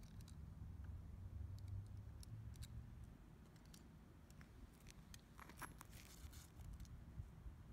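Faint clicks and rustling from hands handling small objects, over a low steady rumble, with a short run of clicks about five and a half seconds in.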